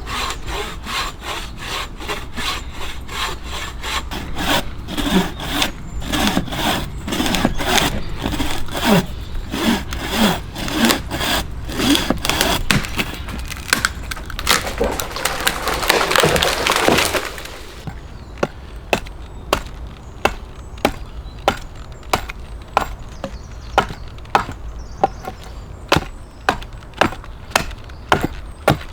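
Hand saw cutting through wood in quick, regular back-and-forth strokes that run together into one continuous rasp shortly before the cut stops, a little past halfway through. After that come evenly spaced sharp knocks on wood, about one and a half a second.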